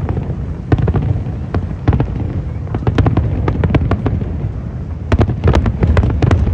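Aerial fireworks shells bursting in a steady barrage: rapid sharp bangs and cracks over a continuous low rumble, coming thickest about three seconds in and again from about five to six seconds in.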